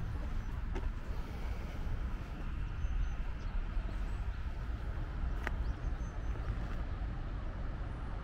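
Low, uneven outdoor rumble in a city park ringed by office towers, with one brief high chirp about five and a half seconds in.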